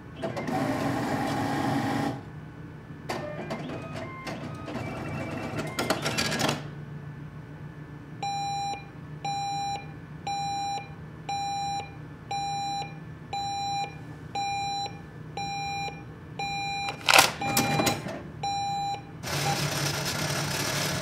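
ATM mechanism running: a short motor whir, then a longer rattling mechanical run, then about a dozen short beeps evenly spaced a little under a second apart, with a sharp clack among the last beeps and another motor whir at the close.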